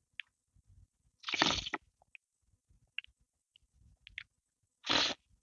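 Close-miked eating of chicken and mushroom soup and crusty bread: two loud, wet mouthfuls, one about a second in and one near the end as a spoonful of soup goes in, with small mouth clicks and chewing between.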